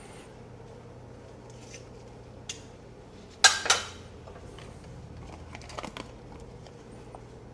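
Kitchen utensils and dishes being handled: scattered light clinks and clicks, with two sharp clatters close together about three and a half seconds in, over a steady low hum.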